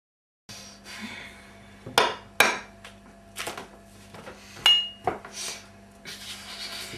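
Tableware knocking on a kitchen table: several sharp knocks, and a little under five seconds in a clink with a short ring. A steady low hum runs underneath.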